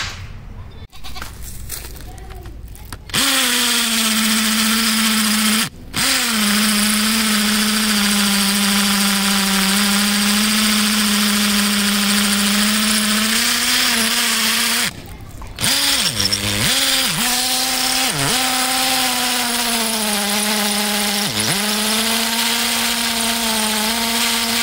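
Foster FK 38-21 21V cordless drill boring into a stone block: a steady motor whine starting about three seconds in. It stops briefly twice, and later its pitch sags sharply several times as the bit bites and the motor bogs under load.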